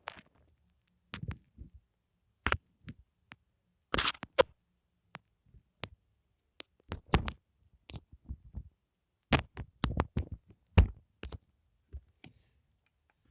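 Foam handled close to the microphone: irregular soft crackles, taps and squishes with silent gaps between them.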